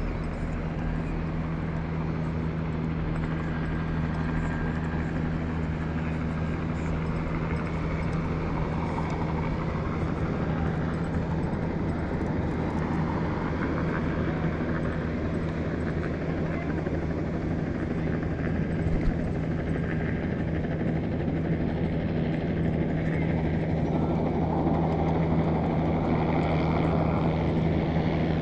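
A steady low-pitched mechanical drone that holds one pitch throughout, over an even wash of outdoor noise.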